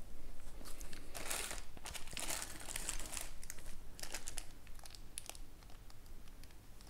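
Small clear plastic bags of kit parts crinkling and rustling as they are handled and opened, with scattered light clicks.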